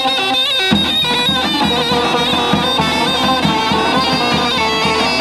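Folk music: a wind instrument playing a melody, with a low bass and a regular beat coming in under it just under a second in.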